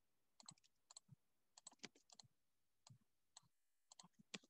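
Near silence broken by faint, irregular small clicks and taps from writing on a digital tablet, one a little louder near the end.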